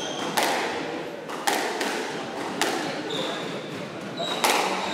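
Squash ball struck hard by rackets and cracking off the court walls, about four sharp hits a second or so apart, each echoing in the court. Short high squeaks come between the hits.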